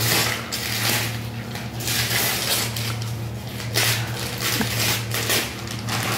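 Shiny gold foil gift wrap being torn and crumpled as a present is unwrapped, in a run of crinkling surges, over a steady low hum.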